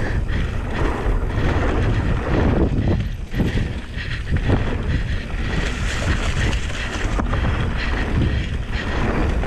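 Wind buffeting the camera microphone over the rolling noise of a Canyon Spectral 29 mountain bike's knobby tyres on a dirt trail, with a few short knocks from bumps.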